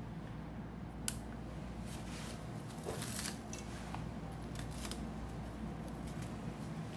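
Small clicks and light handling knocks from turning a magnetic stirrer's knob and taking hold of the glass beaker on it, the sharpest click about a second in, over a low steady hum.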